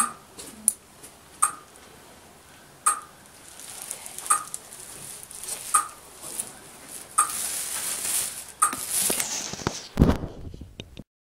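A sharp mechanical click repeating evenly about every one and a half seconds, with rustling handling noise building from about a third of the way in. A heavy low thump comes near the end, then the sound cuts off.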